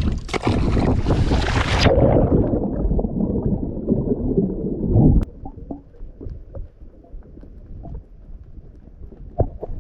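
Wind and water noise buffeting the microphone at sea. For about two seconds it is loud and hissy, then it turns muffled and low until about five seconds in, when it drops to a quiet stretch with scattered small knocks.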